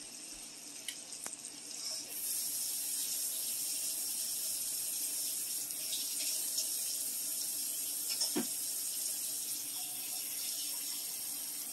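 Kitchen tap running in a steady stream, turned on about two seconds in, as water is drawn to add to the stir fry.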